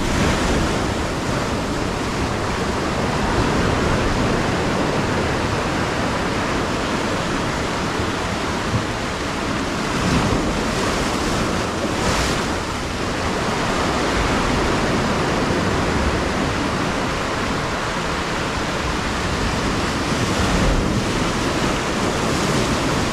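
Sea surf breaking and washing over shoreline rocks: a continuous loud rush of water, with a few heavier wave crashes around the middle and near the end.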